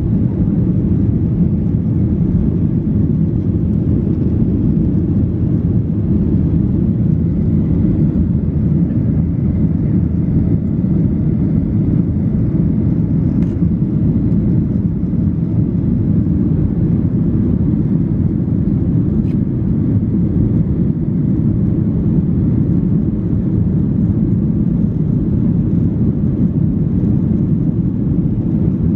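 Inside the cabin of a Boeing 737-800 climbing out after takeoff: the steady low rumble of its CFM56-7B turbofan engines and the rush of air past the fuselage.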